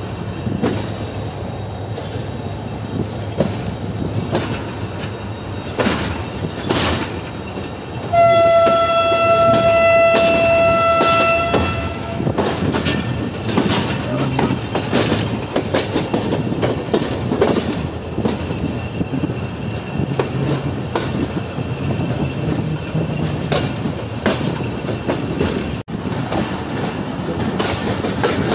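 A passenger train rolling along, heard from a coach window: a steady rumble with irregular wheel clacks over the rail joints. About eight seconds in, a locomotive horn sounds one long, steady blast lasting about three seconds.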